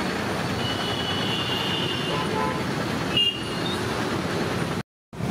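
Busy road traffic noise, with a high tone lasting about a second early on, and the sound cutting out completely for a moment near the end.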